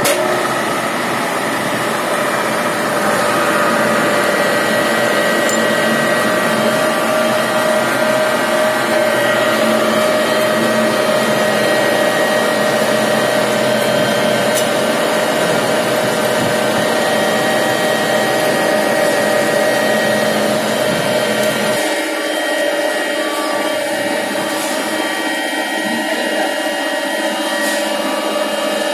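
Vertical milling machine running a friction stir weld: the spindle and rotating tool make a loud, steady motor whine with several held pitches as the tool stirs a water-cooled plate. About 22 seconds in, the low rumble drops away while the whine carries on.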